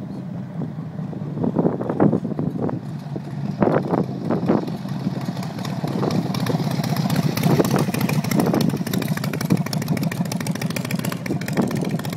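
Harley-Davidson Ironhead Sportster V-twin on a custom chopper, riding toward and past at low speed. There are several short surges of throttle around two and four seconds in, and the exhaust grows louder as the bike comes close.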